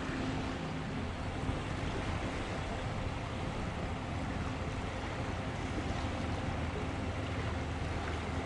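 Steady low drone of a large bulk carrier under way offshore, a constant engine hum mixed with wind and water noise.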